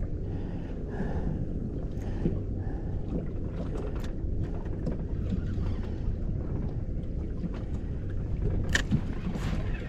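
Steady low rumble of a fishing boat on the water, with a few faint ticks and knocks; one is a little sharper near the end.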